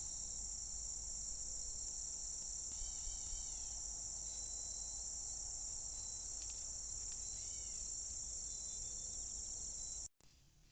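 Steady, high-pitched chorus of insects singing without a break, with two short fainter calls about three and seven seconds in.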